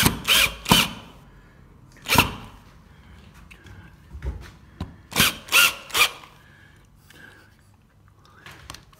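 Cordless drill-driver with a long bit tightening screws into a plaster cornice in short trigger bursts: three quick ones at the start, one about two seconds in, and three more around five to six seconds in.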